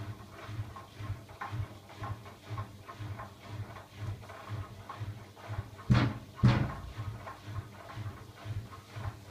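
Siemens iQ700 front-loading washing machine in the wash phase of its Rapid 20 programme: laundry tumbling in the turning drum as a steady rhythm of soft low thumps, about two to three a second. Two much louder thuds come about six seconds in.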